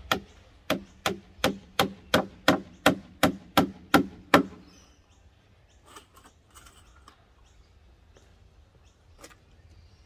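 Claw hammer striking the wood of a pallet: a steady run of about a dozen blows, roughly three a second, growing louder and stopping about four and a half seconds in. One light knock follows near the end.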